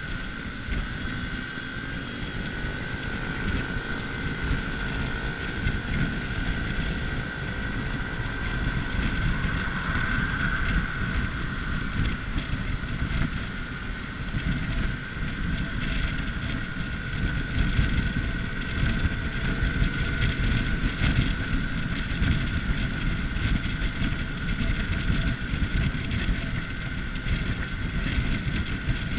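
Vespa GTS Super Sport 125's single-cylinder four-stroke engine running under way, with heavy wind buffeting on the microphone and a steady high whine. It gets louder over the first several seconds as the scooter picks up speed.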